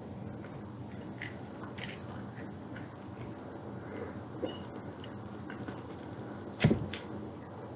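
A person eating oven-baked chicken: faint chewing and small mouth and handling clicks over a steady low room hum, with one sharp knock about two-thirds of the way through.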